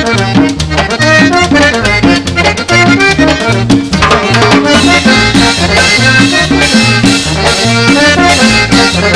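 Instrumental opening of a Colombian costeño dance tune: a diatonic button accordion plays the melody over a bouncing brass bass horn line, with congas and hand percussion keeping a steady beat. About four seconds in the band grows fuller and brighter.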